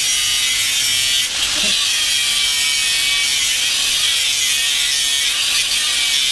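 A power tool running steadily with a high buzzing whine, easing briefly about a second in and again near the end.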